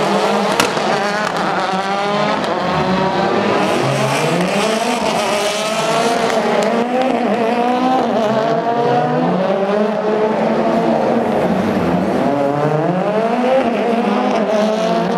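Turbocharged World Rally Car engines, a Mini WRC then a Ford Fiesta WRC, revved hard and lifted off in turn, the pitch climbing and falling again and again through the gears. A sharp pop about half a second in.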